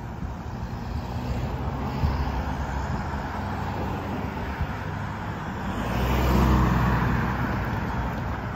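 Road traffic: cars and pickup trucks driving past over a railroad grade crossing, with steady tyre and engine noise. One passing vehicle swells louder about six to seven seconds in.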